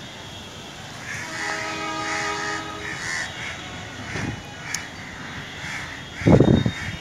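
Crows cawing over and over, then a much louder burst of harsh animal calls about six seconds in.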